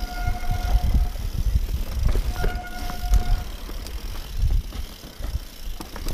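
Mountain bike rolling over rocky dirt singletrack: uneven low rumbling and knocks from the tyres and frame, with a steady disc-brake squeal held for about a second near the start and again about two and a half seconds in.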